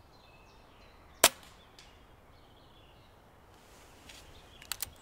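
Single shot from an Air Arms Ultimate Sporter air rifle, a sharp short crack about a second in, the shot that drops a magpie at a pheasant feeder.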